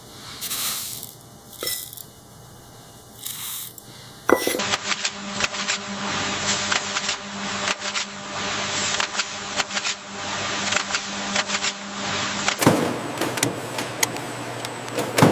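Factory production-line machinery. A few short hissing bursts come first. About four seconds in, a dense run of rapid clicking and clattering starts over a steady hum, and it changes abruptly near the end.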